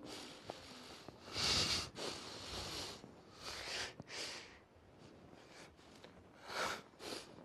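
A man weeping, his Quran recitation broken off by sobbing: several short bursts of sniffing and shaky breath, the loudest about a second and a half in and another near the end.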